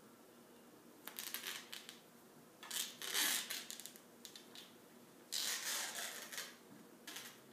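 Athletic tape being pulled off the roll in three short ripping pulls: about a second in, around three seconds in, and again after five seconds.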